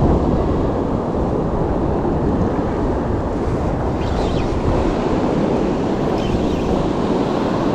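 Ocean surf washing onto a beach, with wind buffeting the microphone: a steady, deep rush of noise.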